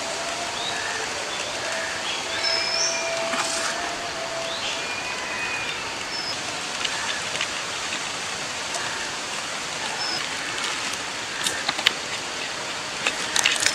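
Outdoor ambience: a steady hiss with scattered short bird chirps and whistles, and a few sharp clicks near the end.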